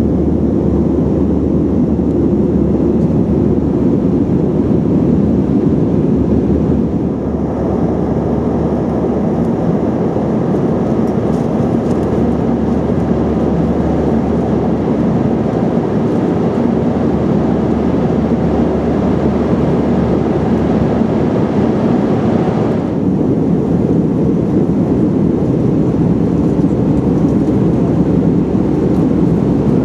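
Airbus A321 cabin noise in cruise: a steady rushing drone of airflow and engines heard from inside the cabin, its tone shifting slightly twice.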